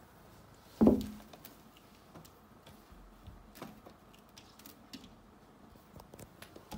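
A single loud thump about a second in, then scattered light clicks and taps as a cat claws at a sheer lace curtain hanging against a glass door.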